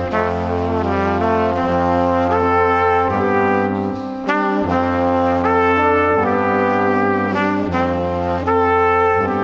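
Slow instrumental music: sustained chords with rich overtones over a steady deep bass, the notes changing every second or so, with a brief dip about four seconds in.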